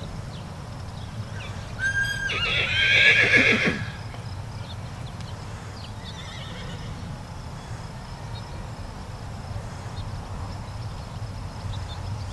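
A horse whinnies once, about two seconds in: a high, wavering call lasting under two seconds that drops in pitch as it ends.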